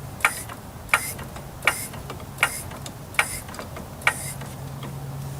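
Floor jack being pumped to lift a car, a sharp click with each stroke of the handle, evenly spaced about three-quarters of a second apart.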